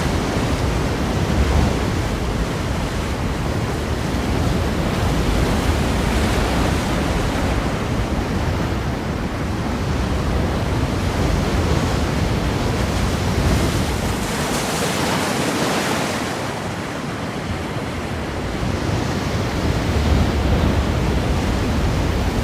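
Ocean surf breaking against rocks: a continuous wash of water that swells and eases in slow surges.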